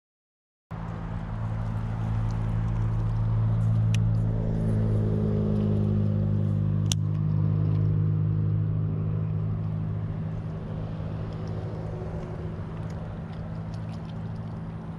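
Boat motor running with a steady low hum, slowly fading over the second half. There is a single sharp click about seven seconds in.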